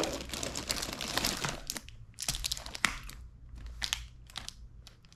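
Plastic snack wrappers crinkling as a hand rummages through a pile of packets, dense for about two seconds, then a string of separate crackles as one wrapped bar is picked up and handled.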